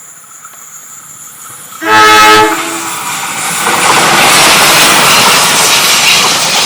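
A railway locomotive's horn sounds one short blast about two seconds in, a driver's greeting to trainspotters by the line. The train then passes close by with a loud, sustained rush of wheels and carriages.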